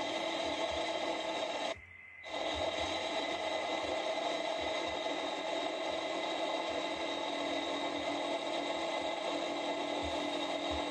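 ATV running along a gravel road, heard from a camera mounted on the machine: a steady noisy drone of engine, rattle and tyres on gravel. The sound cuts out for about half a second around two seconds in.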